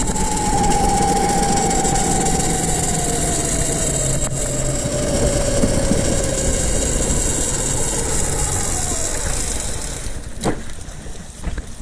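Mini bike's 212cc single-cylinder engine running at speed with open-header exhaust and heavy wind noise. Its whine falls slowly in pitch as the bike slows, and the engine sound drops away about ten seconds in.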